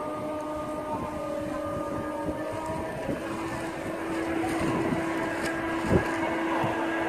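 LGB large-scale model train running on the garden-railway track with a steady electric hum that steps up in pitch about three seconds in and grows louder. A single knock near six seconds.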